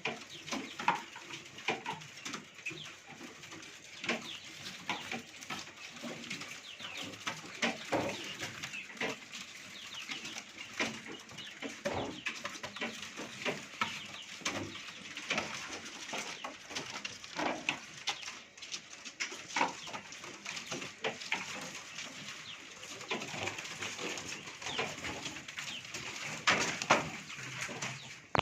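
Many caged birds chirping and calling over one another, with frequent short scratchy knocks and rustles among them.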